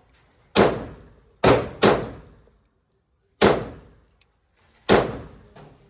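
Smith & Wesson M&P 2.0 pistol firing five shots at an irregular pace, the second and third close together, each bang trailing off in reverberation, with a fainter bang near the end.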